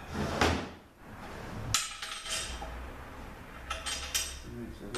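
Steel parts of an automatic transmission clinking and knocking against each other as they are handled during teardown: a few sharp metal strikes, about half a second in, near two seconds and around four seconds.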